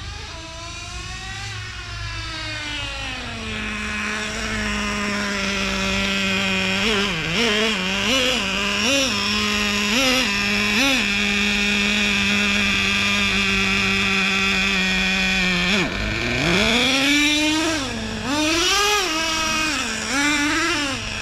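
Traxxas Revo 3.3 RC truck's small two-stroke nitro engine running hard: it winds up, holds a steady high note with a few quick throttle blips, drops sharply about sixteen seconds in, then revs up and down repeatedly. The engine is running rich (fat), its mixture not leaned out.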